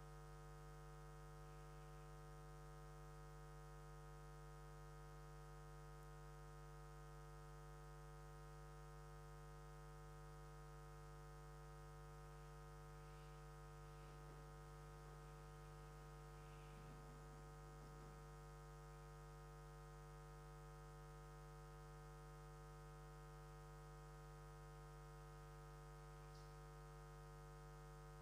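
Near silence with a faint, steady electrical hum made of several even tones.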